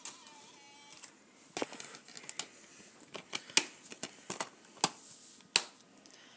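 Irregular sharp plastic clicks and clacks with light rustling, a DVD case being handled. There are about a dozen sharp clicks, unevenly spaced, and the loudest comes a little past the middle.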